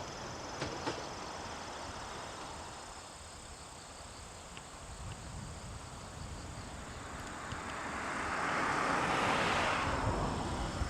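The last wheel clacks of a train fading away in the first second, over a steady faint insect chirr. Near the end, a broad rushing noise swells and fades again.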